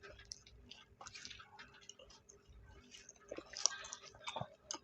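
Close-up mouth sounds of a person eating: chewing with irregular wet clicks and smacks, loudest about three and a half seconds in.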